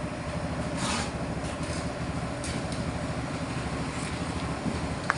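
Mini pellet mill running with its small engine chugging steadily. A few brief higher sounds come over it, and there is a short sharp click near the end.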